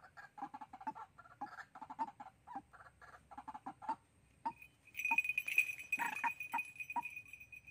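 White-breasted waterhens calling in quick runs of short clucking notes, about five or six a second, thinning out after about four seconds. About five seconds in, a steady high-pitched whine with a hiss comes in and lasts almost to the end.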